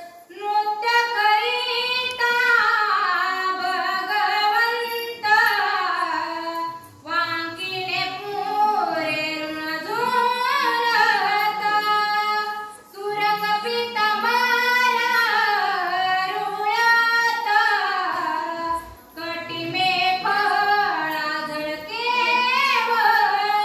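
A solo female voice singing devotional verses in long, wavering phrases, with a few short breaks for breath.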